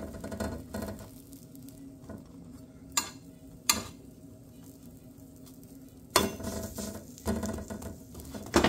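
Slotted spatula scraping and tapping on a flat non-stick griddle pan while an egg-and-spinach toast fries, with a light sizzle underneath. Two sharp taps come a few seconds in, then louder scraping from about six seconds on.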